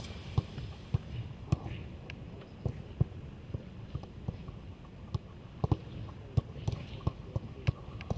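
Footballs being kicked back and forth during a passing drill: a run of sharp, irregular thuds, about two a second.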